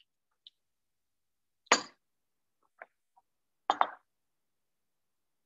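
A wooden pepper mill and other kitchen items set down on a wooden cutting board: two sharp knocks about two seconds apart, with a few faint clicks between.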